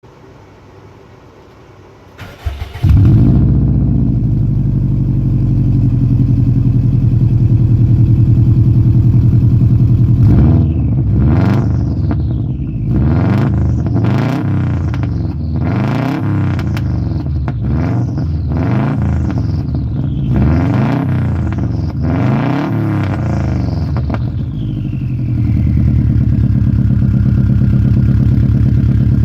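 2004 Subaru WRX's turbocharged flat-four through an Invidia N1 catback exhaust: cranked and started about two seconds in, idling with a brief high-idle flare, then revved in a series of about a dozen quick blips that rise and fall, before dropping back to a steady idle.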